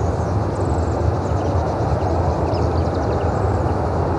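Boeing 737-800's CFM56-7B jet engines at takeoff power: a steady, heavy rumble and roar that holds at one level.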